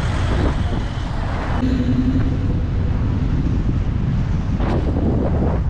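Wind buffeting a bike-mounted action camera's microphone as the bicycle rides at speed through traffic, a steady rumble with road noise from cars alongside.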